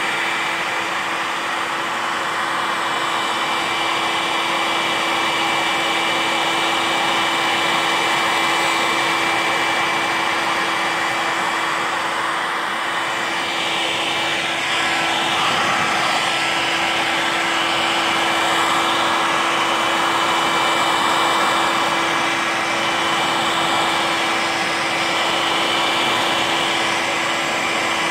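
Electric heat gun blowing steadily, its fan running with a constant hum, a thin whine and a rush of air, heating faded black plastic wheel-arch trim to darken it again.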